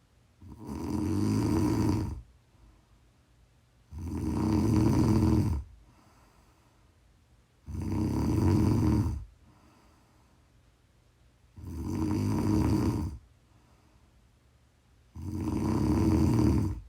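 Loud, regular snoring: five snores, one about every three and a half to four seconds, each lasting about a second and a half, with near quiet between them.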